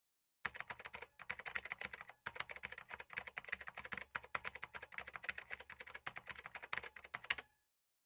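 Fast typing on a computer keyboard: a dense run of keystrokes, many a second, with a brief pause about two seconds in, stopping shortly before the end.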